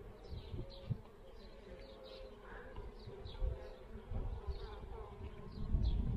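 Buckfast honeybees buzzing in a steady hum over an open hive, with a few low knocks and handling noise as a comb frame is moved above the hive box.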